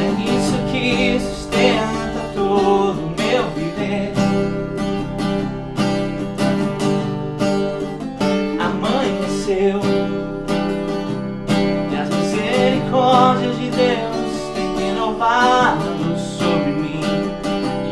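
Acoustic guitar strummed in steady chords, with a voice singing over it at times, most clearly in the second half.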